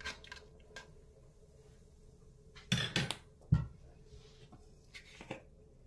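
A few clinks and knocks of kitchen utensils and dishes being handled, the sharpest a single knock about three and a half seconds in.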